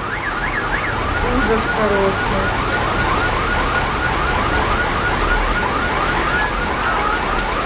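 A car alarm sounding in a fast, evenly repeated rising-and-falling electronic warble, over a steady wash of noise.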